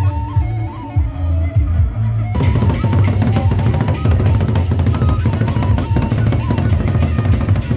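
A gendang beleq ensemble of large Sasak barrel drums and clashing cymbals playing a fast, dense beat that comes in abruptly about two seconds in. Before that, a melodic tune with wavering lead lines plays over a low steady tone.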